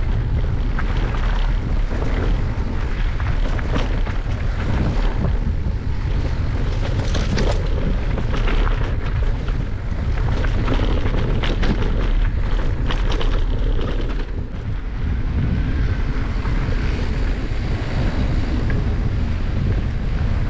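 Wind buffeting the microphone of a camera riding on an electric mountain bike, with a steady deep rumble and many quick clicks and rattles from the bike and tyres on rough trail.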